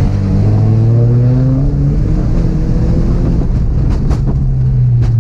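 Volkswagen Beetle's engine pulling under load off-road, its pitch rising over the first couple of seconds and then holding steady, with a few sharp knocks near the end.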